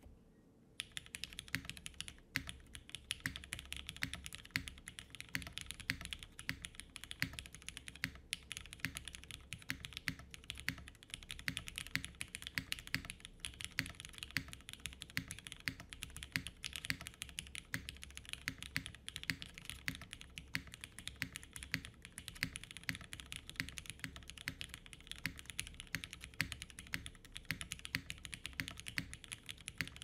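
Fast, continuous typing on a custom TKL mechanical keyboard with a polypropylene plate, lubed and filmed Cherry Hyperglide Black linear switches and GMK keycaps: a steady stream of keystroke clacks, starting about a second in.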